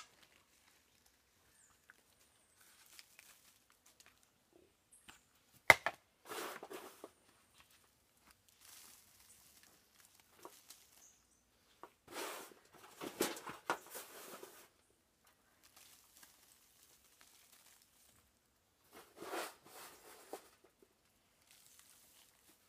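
Handfuls of dry soil scattered onto a compost heap of dry leaves, rustling and pattering in three separate bursts, with a sharp knock just before the first.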